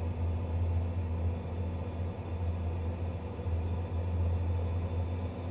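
Ko-max Silence CAM 200 dental dust-extraction unit running steadily: a constant low hum with an even rush of air.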